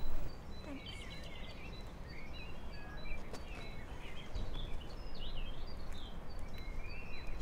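Small birds chirping and twittering, short rising and falling calls on and off, over a low steady rumble of background noise.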